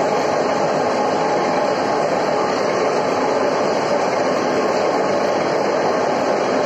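Steady, unbroken machine noise, a dense rumble with no rhythm or pauses.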